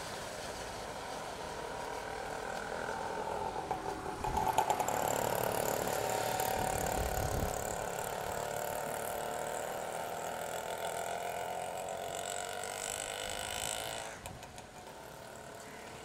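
Road traffic going by: vehicle engines and tyres passing on the road, one swelling up about four seconds in and the traffic noise dropping away near the end.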